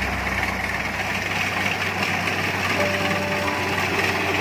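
Kubota rice combine harvester running steadily as it cuts and threshes standing rice, its engine and threshing drum making a continuous mechanical din.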